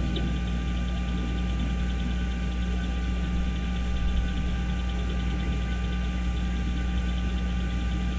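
A steady hum with several fixed tones that holds unchanged throughout, like the electrical or mechanical noise on a nest camera's audio feed; no eagle calls are heard.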